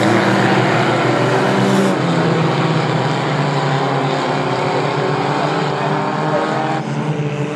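Several compact stock car engines running hard at racing speed on a short oval track, their overlapping pitches rising and falling slightly as the pack goes through a turn and onto the straight.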